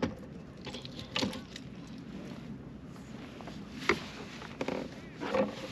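Fishing gear being handled on a kayak: a handful of short, sharp knocks and clatters as the rod is moved and the landing net is handled, over a low steady wash of water and wind.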